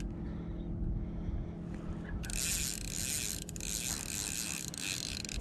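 Fishing reel drag buzzing as a hooked smallmouth bass pulls line, starting about two seconds in and running for about three seconds, over a steady low hum.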